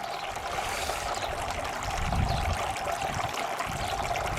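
Small solar-powered bird-bath fountain running, its pump sending a steady trickle and splash of water into the basin. A brief low rumble comes about two seconds in.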